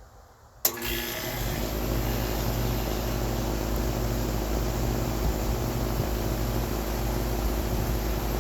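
An air conditioner starting up: a sharp click under a second in, then the compressor and fan come on at once and run with a steady hum and rushing air.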